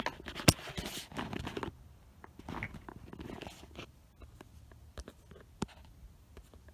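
Handling noise from a phone camera being moved about: a sharp knock about half a second in, a second or so of rustling, then scattered faint clicks.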